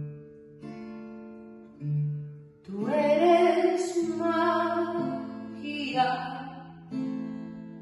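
Background song: plucked acoustic guitar notes ring and fade, with a sung vocal line over them from about three to six seconds in.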